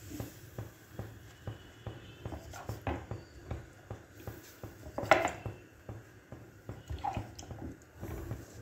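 A wet hand patting and smoothing water over a raw jowar (sorghum) roti on a tawa: a run of soft, irregular pats, a few of them louder.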